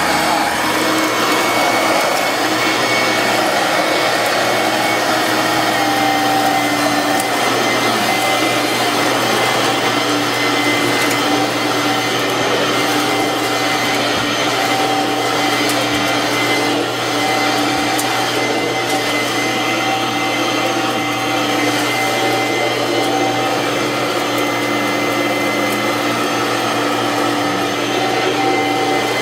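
Kenmore 6-amp two-speed, twin-fan upright vacuum cleaner running on high speed: a loud, steady motor whine with a few constant tones over rushing air.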